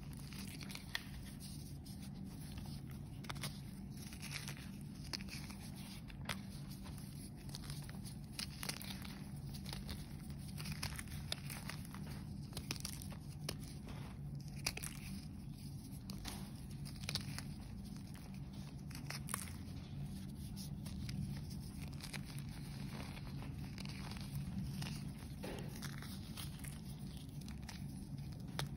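Fingers crushing and crumbling chunks of dyed, reformed gym chalk (magnesium carbonate), giving a continuous run of irregular dry crunches and crackles. A steady low hum runs underneath.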